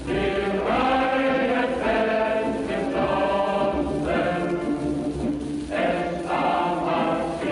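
Choral music: voices singing long held notes, with a new phrase starting every one to two seconds.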